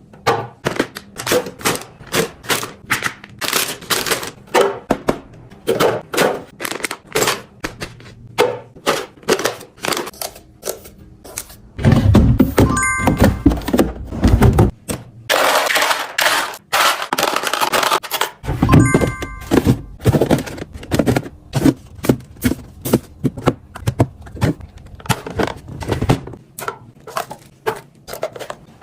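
Household items and containers being handled and set down: a steady run of sharp clicks, taps and thunks, with a longer rustling stretch about halfway through.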